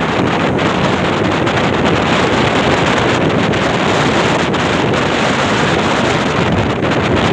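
Steady, loud wind rushing over the microphone of a camera travelling along a road, with no distinct engine note standing out.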